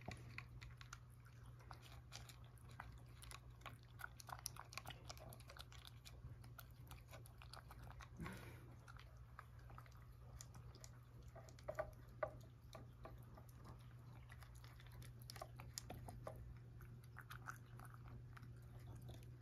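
A cat eating dry kibble mixed with a lickable Churu treat from a ceramic bowl: faint chewing with many small irregular clicks, two a little louder about twelve seconds in, over a steady low hum.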